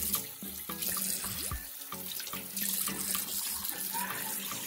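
Water running from a tap into a sink, with splashing as a turmeric face mask is rinsed off.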